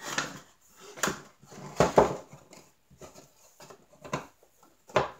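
Thin wooden panels of a tray holder knocking and clacking together and against the tabletop as they are fitted into each other's slots: a handful of sharp knocks, the loudest about two seconds in.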